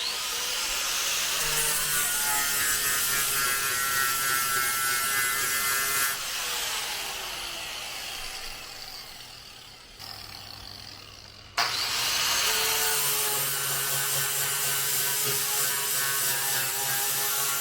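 Electric grinder running on corrugated steel. It runs for about six seconds, winds down, and starts again suddenly near two-thirds of the way in.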